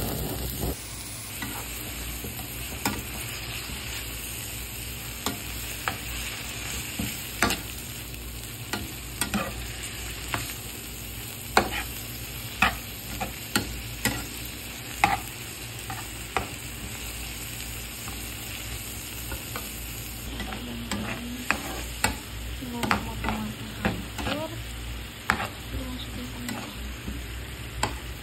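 Chopped shallots and tomatoes frying in hot oil in a pan with a steady sizzle, while a metal spatula stirs them, clicking and scraping against the pan many times.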